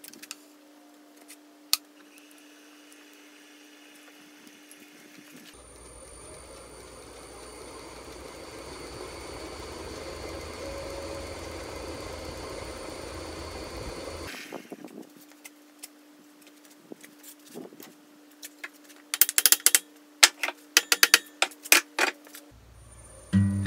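Wood lathe spinning a large, unbalanced, bark-covered birch log: the motor and the whirling blank make a deep rumble that grows louder for a few seconds, holds, then stops abruptly. Several seconds later comes a quick cluster of sharp knocks and clicks.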